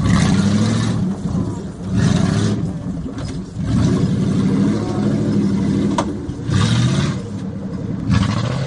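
Engine of a Jeep-bodied off-road trial vehicle revving in repeated bursts, about five surges, as it crawls over rocks and climbs away. A single sharp click sounds about six seconds in.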